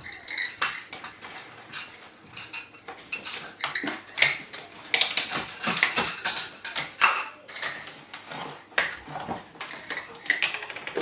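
Kitchen utensils and dishes clinking and knocking irregularly while a tablespoon of washing-up liquid is measured out into a mixing bowl.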